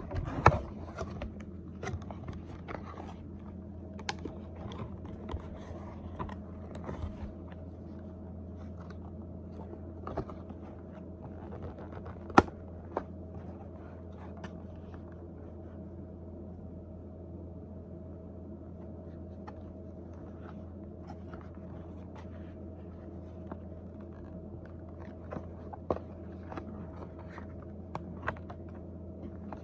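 Cardboard-and-plastic knife packaging being handled and worked open: scattered crinkles, scrapes and clicks, with sharp snaps about half a second in and again about twelve seconds in, over a steady low hum.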